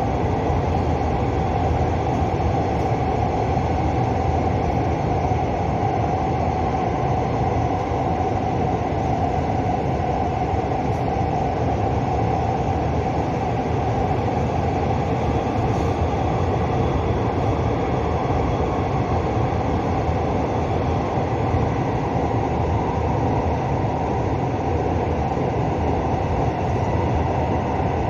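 Seoul Subway Line 4 train running at speed through a tunnel, heard from inside the car: a steady rumble and rush of wheels on rail with a steady hum running through it.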